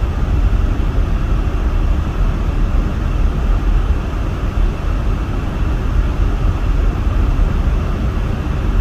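Steady noise inside a moving car's cabin: a low rumble from the road and engine under the loud hiss of the heater fan blowing to keep the windshield clear.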